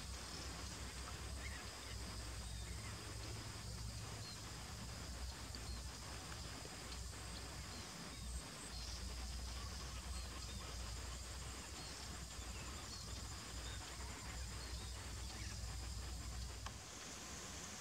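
Faint outdoor ambience: a steady low rumble under a hiss with a thin, steady high whine, and scattered faint, short high chirps. The rumble dips briefly about halfway through and fades just before the end.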